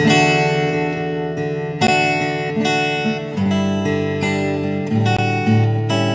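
Instrumental acoustic guitar music: chords struck every second or two and left to ring and fade.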